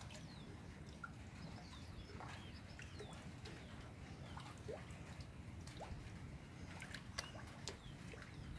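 Birds chirping faintly: many short, high, scattered calls over a steady low rumble, with a few sharp clicks near the end.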